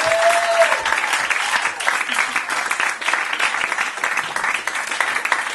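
Audience applauding: many hands clapping in a dense, steady patter that thins slightly near the end.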